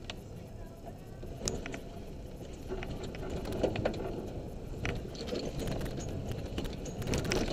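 Road noise heard from inside a vehicle driving on a wet gravel road: a steady low rumble of tyres and engine with scattered sharp clicks and knocks from stones and rattles, the loudest about halfway through.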